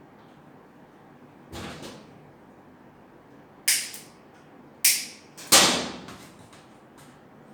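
Hands working on washing machine parts while fitting a timer: a softer scrape about one and a half seconds in, then three sharp knocks of hard parts against each other, the last the loudest.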